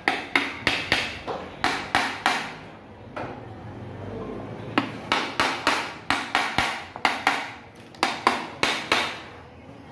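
Hammer tapping on the aluminium crankcase of a Bajaj cargo motocarro engine during assembly: sharp metallic taps in quick runs of three to six, about three or four a second, with short pauses between the runs.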